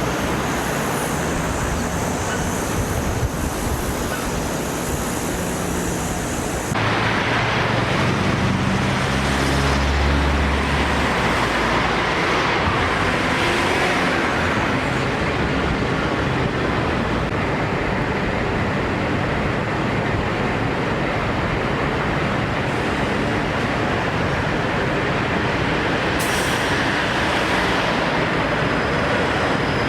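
Street traffic noise from passing vehicles, running steadily without speech. The sound changes abruptly about seven seconds in.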